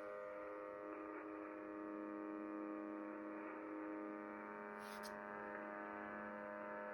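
Steady buzzing drone, rich in overtones, from an unidentified station on 4635 kHz shortwave received on a Kenwood TS-850SAT; the uploader wonders whether it is a pirate UVB-76 or a broken buzzer. A brief hiss cuts in about five seconds in.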